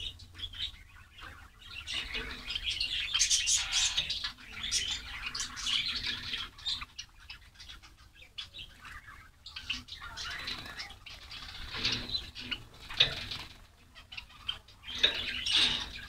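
A group of white Java sparrows chirping with many short, sharp calls, mixed with wings fluttering.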